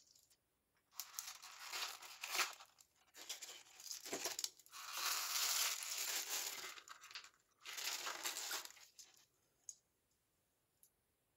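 Crinkly plastic wrapper being unwrapped and torn open by hand, in several bursts of crinkling and tearing, the longest about halfway through. It stops near the end, leaving only a few faint clicks.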